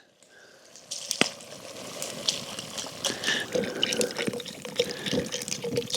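Beef stock pouring and splashing into a Dutch oven of stew, starting about a second in, with a few sharp clicks over it.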